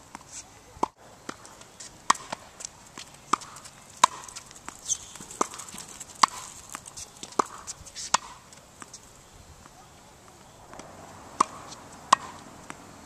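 Tennis rackets striking a ball in a volley rally: sharp pops about a second apart, with a pause of a few seconds before the last two hits.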